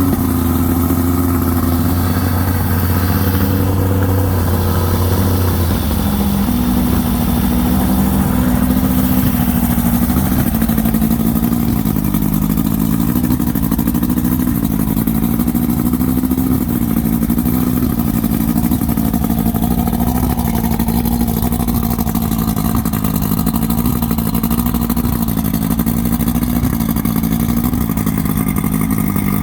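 An engine running steadily. About six seconds in its note shifts and its deepest hum drops away, and after that its speed wavers slightly up and down. The owner is unsure whether its irregularity is a sneeze or a misfire.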